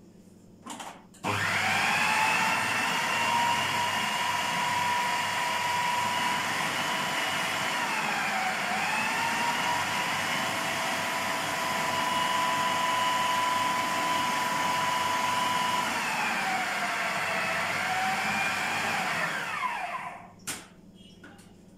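Electric kitchen blender grinding ta'ameya (Egyptian falafel) paste of soaked fava beans, herbs, onion and garlic. The motor starts about a second in and runs at a steady pitch that sags twice under load, then winds down near the end, followed by a short knock.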